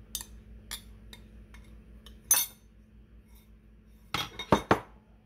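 Clinks and knocks of kitchenware against a glass mixing bowl as flour is tipped into cake batter. There are a few separate light taps at first, then a quick cluster of louder knocks near the end.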